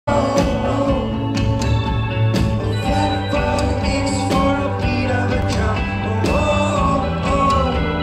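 Live rock band playing, with drums, electric guitars and bass under a male lead voice singing into a handheld microphone. The sound is a loud concert mix heard from the crowd.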